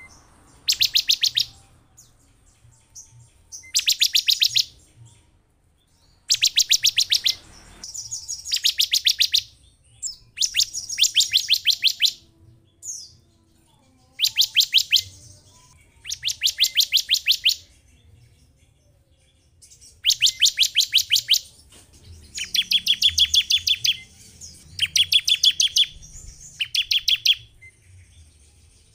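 Bar-winged prinia (ciblek) giving repeated fast trills, each about a second of rapid, evenly spaced high notes, about a dozen of them with short pauses between.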